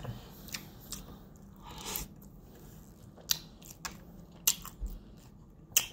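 A man chewing a mouthful of loaded fries topped with fried chicken bites, with scattered sharp mouth clicks and small crunches.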